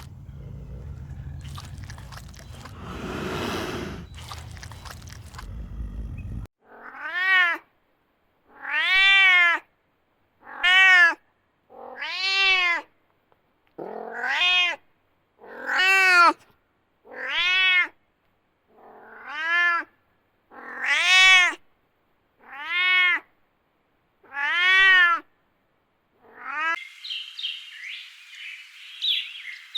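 A cat meowing about a dozen times, each meow a rising-then-falling call under a second long, one every second and a half or so. Before the meows there is a few seconds of steady rushing noise, and near the end there are high chirps like birds.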